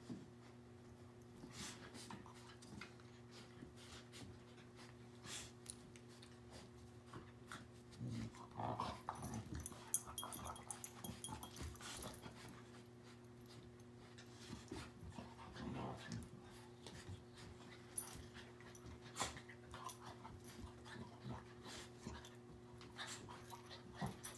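A puppy and an adult dog play-wrestling, with faint play growls in short bouts, loudest about a third of the way in and again about two-thirds in. Scattered small clicks and a steady low hum run underneath.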